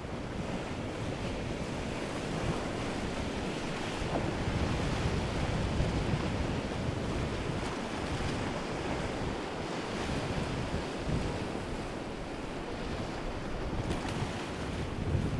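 Steady rushing wash of waves and a passing motor yacht's wake, with wind buffeting the microphone.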